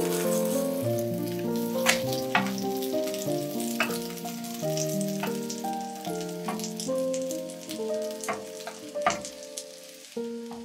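Cabbage-and-egg pancake sizzling in oil in a nonstick frying pan, with a plastic spatula stirring and turning it and a few sharp clicks, under background music: a melody of held notes. The whole grows quieter toward the end.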